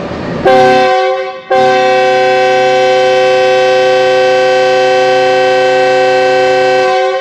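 Air horn of a Pakistan Railways GEU-20 diesel-electric locomotive: a short blast, then a long steady blast of about five and a half seconds, sounding a chord of several notes. It is the signal that the train is about to depart.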